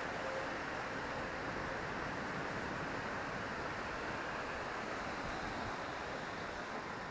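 Steady rushing outdoor ambience with no distinct events, the kind left by wind and distant surf.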